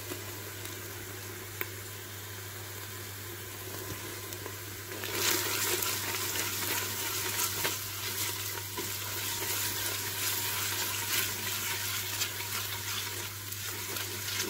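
Browned onions with garlic and ginger paste frying in hot oil in a clay handi: a soft sizzle that turns louder and crackly about five seconds in, as a spoon stirs the mixture.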